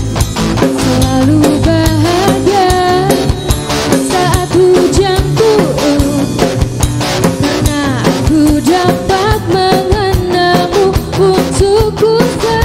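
Live pop band playing a ballad: drum kit keeping a steady beat, acoustic and electric guitars, bass, and a wavering lead melody on top.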